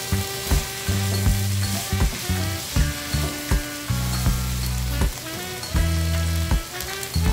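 Diced mixed vegetables and ham sizzling in oil in a non-stick frying pan, stirred with a spatula, with scattered clicks. Background music with held bass notes plays over it.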